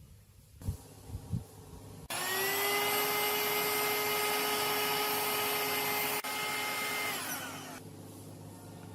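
A small high-speed electric motor, like a power tool's, starts abruptly after two light knocks and runs at a steady high whine. It then winds down in pitch and stops.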